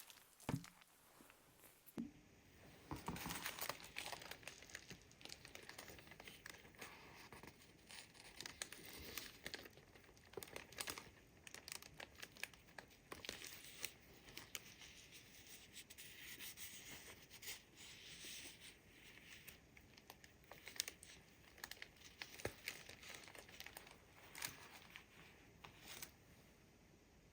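Quiet paper handling: crinkling and rustling with scattered small clicks and taps, picking up about two seconds in.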